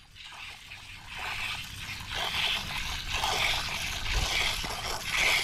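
Milk squirting by hand from a cow's teat into a steel pot in rhythmic spurts, about two a second, faint at first and louder after about a second.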